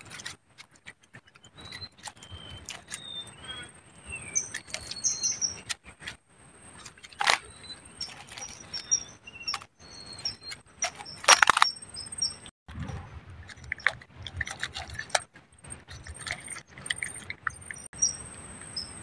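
Small birds chirping in short high calls over a steady high insect whine, with rustling and clicking from a mesh keep net being handled, and two sharper rustling knocks about seven and eleven seconds in.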